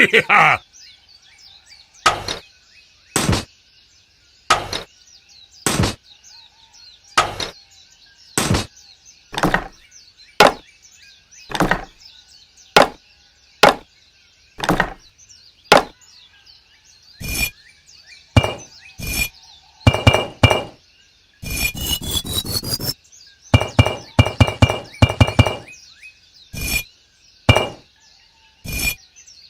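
A series of sharp knocks, about one a second, some with a short metallic ring. About two-thirds of the way through comes a quick rattling run. Faint bird chirps sound in the background.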